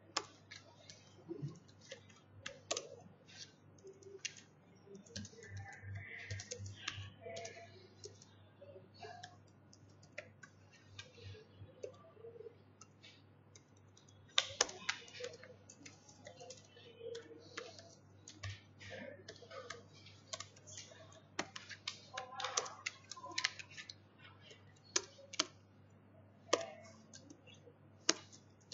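Typing on a computer keyboard: irregular runs of keystrokes broken by short pauses, over a steady low hum.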